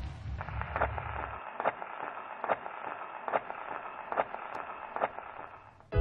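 Crackling, hissing static that sounds as if heard through an old radio, with a soft tick recurring a little more than once a second.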